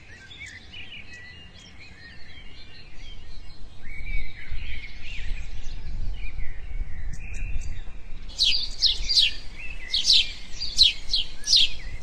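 Birds chirping and calling over a haze of background noise. From about two-thirds of the way in, a run of quick, sharp, downward-sweeping high chirps repeats about three times a second.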